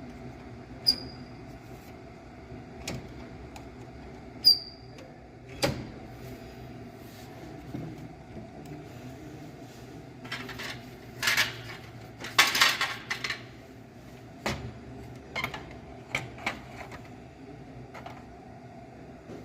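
Sharp plastic clicks and knocks from the covers and parts of a Canon imageRUNNER ADVANCE C5540i copier being handled, with a burst of rustling and scraping about two-thirds of the way through, over a steady machine hum.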